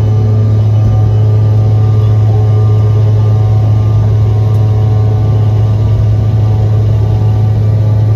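Cabin noise of a CRJ-550 regional jet on its takeoff run and lift-off: its rear-mounted turbofan engines at takeoff thrust give a loud, steady drone with a strong low hum and several steady higher tones.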